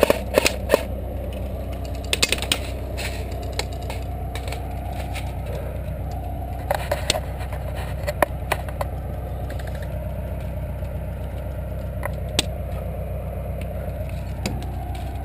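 Sharp clicks and knocks from an AK-style airsoft rifle being handled, a quick cluster in the first second and then scattered single clicks and snaps every few seconds, over a steady low rumble.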